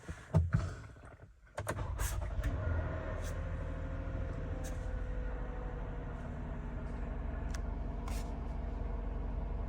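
Toyota Sienna's V6 engine being started about a second and a half in after a few clicks, then idling steadily, heard from inside the cabin, a tone in it easing down slightly as the idle settles. The water pump is failing, and the owner hears its noise from inside.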